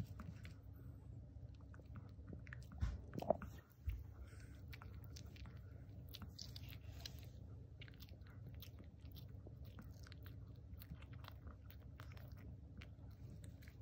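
Small dog gnawing and chewing on a treat: faint, irregular crunching and clicking, with a couple of louder knocks about three seconds in.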